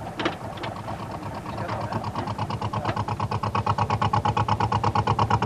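Boat engine running with a fast, even pulsing beat that grows steadily louder, with a few sharp knocks near the start.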